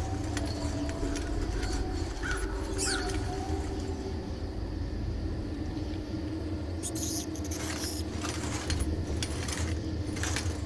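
Scary sound-effects track playing from a speaker: a steady low drone with held tones, scattered clicks and a brief rising squeak.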